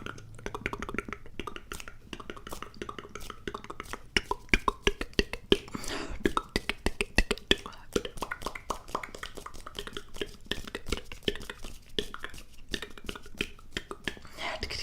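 ASMR mouth sounds: a rapid, irregular series of wet clicks and pops from the tongue and lips.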